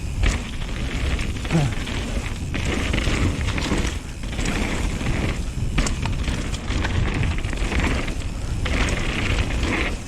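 Riding noise from a Nukeproof Mega 275 full-suspension mountain bike going down a wet, muddy trail: a steady low rumble of wind and trail noise with scattered knocks and rattles over bumps, and rushing noise that swells and fades as the tyres go through mud and puddles.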